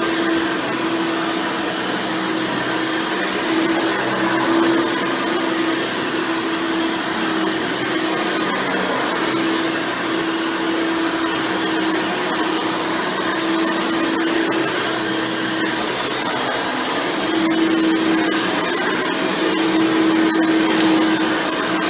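Hoover Elite Supreme upright vacuum running, its 7.2 amp motor with a 20-blade fan impeller and a single-row brush roll. It gives a steady motor whine over rushing air, with slight swells in loudness.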